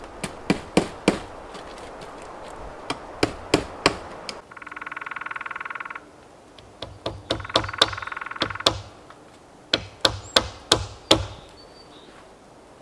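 Hand-tool blows on wood: sharp knocks in quick groups of three to five. Between the groups are two rough buzzing sounds of about a second and a half each.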